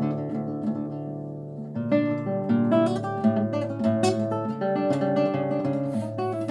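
Classical guitar played fingerstyle, plucked melody notes ringing over bass notes. About a second in it softens to a few held notes, then picks up again with quick plucked notes.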